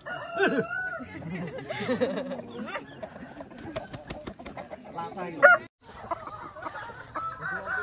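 Roosters crowing and clucking, with people's voices mixed in. There is a short loud call about five seconds in, then a brief break in the sound.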